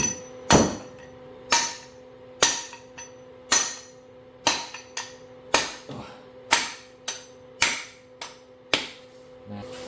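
Hammer blows on a seal driver, driving the piston seal down into a Toyota Hilux power steering rack housing: a dozen or so sharp metal strikes about one a second, a few coming closer together, with the steel rack tube ringing after each.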